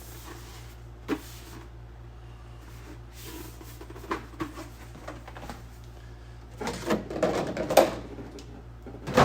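Hard plastic being handled: a replica helmet shell and its molded plastic packaging knocking and scraping. A sharp knock about a second in, a few light knocks midway, a busier, louder run of knocks and rustling near the end, over a steady low hum.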